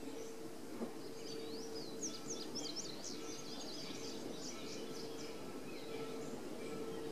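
Songbirds chirping, with a quick run of high whistled notes in the middle, over a steady faint hum.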